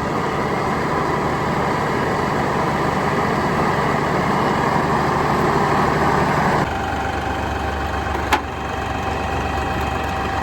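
Small LS compact tractor's diesel engine running steadily, then dropping suddenly to a lower, quieter idle about two-thirds of the way through, as if throttled back. One sharp click follows shortly after.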